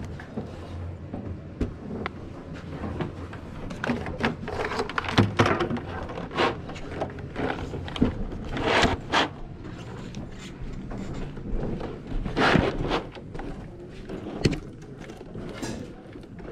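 Scattered knocks, clicks and thumps of items being handled and moved about, with a few louder rustling bursts.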